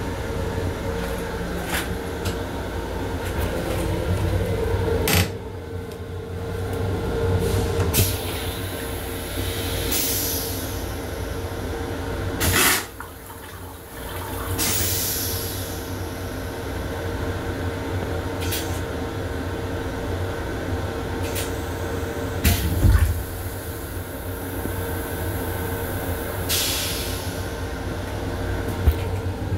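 The M7 railcar's stainless-steel-bowl toilet flushing, with a loud rush a little under halfway through and several short hisses of water and air before and after. A thump comes about three quarters of the way through, all over the steady low rumble of the moving train.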